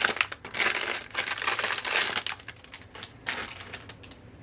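Packaging crinkling and rustling as it is handled and unwrapped. Busy crackling for about the first two seconds, one more short rustle about three seconds in, then it quiets.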